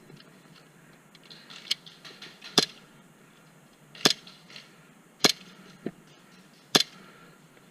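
Airsoft guns firing single shots: about six sharp cracks at uneven intervals, four of them loud and two fainter.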